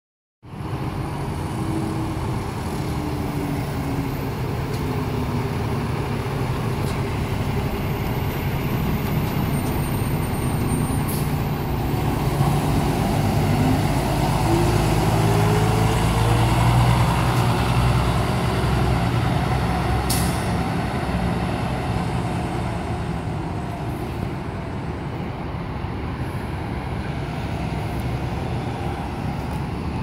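Diesel engine of a Blue Bird Express 4500 coach bus running as it pulls away. Its pitch rises for a few seconds around the middle as it accelerates, then the sound slowly fades as the bus drives off.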